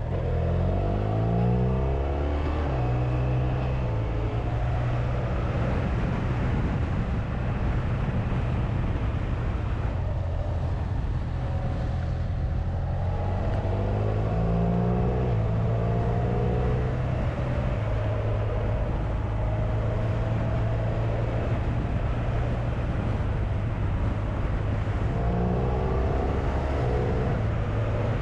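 Honda VFR1200X Crosstourer's V4 engine under way, with wind rush. Its pitch climbs and drops back in steps as the dual-clutch gearbox shifts up: near the start, again about halfway, and once more near the end.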